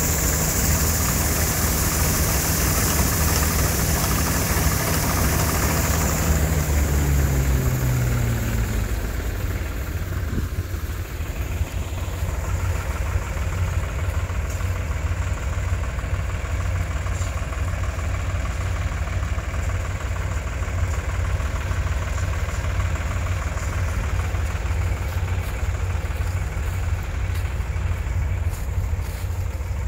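Claas Crop Tiger 40 combine harvester running at work, a loud steady engine and machinery drone. About eight seconds in the engine note falls away, and the sound settles into a lower, steadier rumble with less high-pitched whirr.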